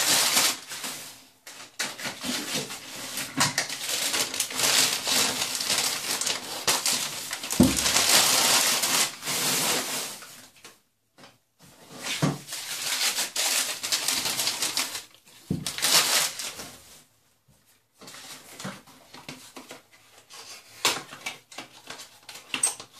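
Newspaper rustling and crinkling as wrapped items are unpacked, in stretches with short pauses, mixed with knocks of plastic and glass bottles being set down on a hard surface.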